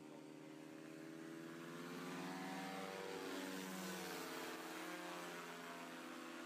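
Paramotor engine and propeller droning as it flies past, growing louder towards the middle and easing off after, its pitch bending as it passes.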